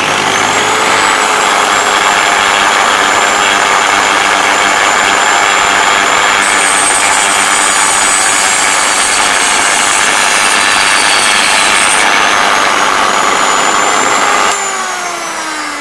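Parkside PFBS 160 B2 rotary multi-grinder spinning a thin cut-off disc at high speed and cutting through a piece of plastic: a steady high whine, with a harsher hiss added in the middle while the disc bites. About fourteen seconds in it is switched off and winds down with falling pitch.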